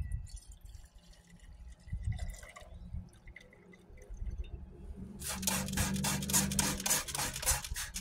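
Thick, muddy slurry of precipitated gold pouring from a plastic bucket into a glass beaker, dripping and splattering. About five seconds in, it turns into a louder run of rapid splattering.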